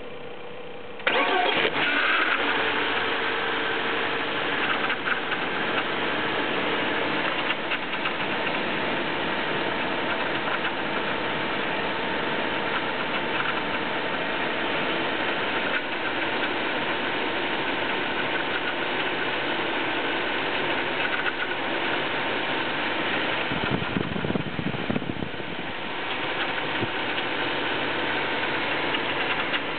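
BMW M44B19 four-cylinder engine starting from cold about a second in, then running steadily with a metallic noise that the owner cannot place. The owner reports the idle swinging between about 1000 and 1500 rpm.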